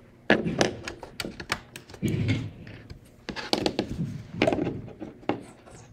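Irregular run of small plastic clicks and knocks as a ClickShare button's cable and connector are handled and plugged into the ClickShare C-10 base unit to pair the button.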